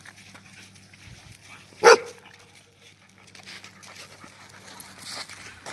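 A beagle puppy and a husky panting as they play-wrestle, with one loud, short bark about two seconds in.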